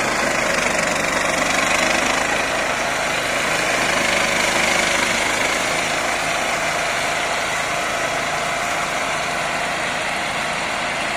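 A small tractor and the rear flail mulcher's own small air-cooled petrol engine running steadily, with the mulcher chopping through tall grass as the tractor drives forward.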